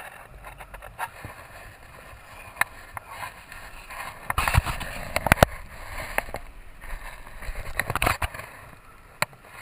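Wind rushing over the microphone of a camera worn by a rider swinging on a gorge swing, with scattered knocks and bumps; it is loudest about four and a half to five and a half seconds in and again around eight seconds.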